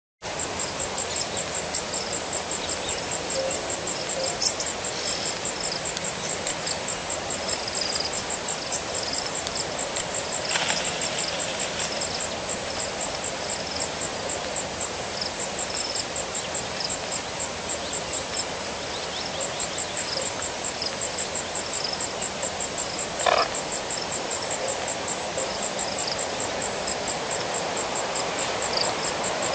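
Outdoor bush ambience at a waterhole: a steady hiss with insects trilling fast and evenly and scattered short high chirps of small animals calling, broken by two brief louder sounds, one about a third of the way in and one past three quarters.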